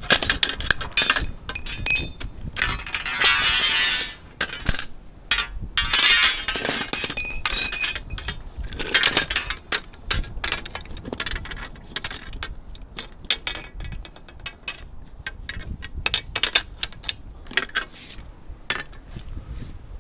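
Metal clinks and knocks of tools and copper pipe and fittings being handled during plumbing work, with two longer rasping noises about three and six seconds in.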